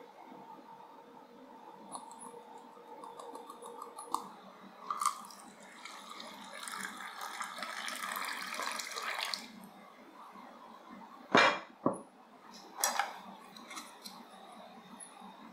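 Kitchen prep sounds: a steady pouring rush for about four seconds, then two sharp knocks about half a second apart and a lighter clack a second later.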